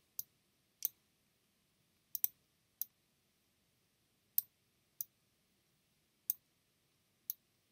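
A series of about nine sharp, irregularly spaced computer mouse button clicks, two of them in quick succession a little over two seconds in, as text objects are selected and dragged into place.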